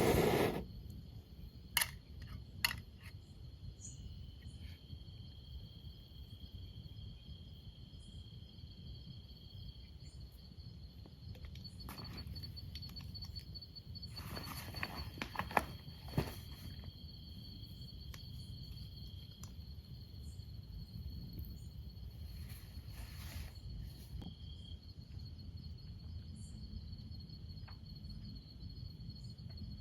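Forest insects keeping up a steady, high-pitched drone, with a few sharp clicks about two seconds in and again around the middle.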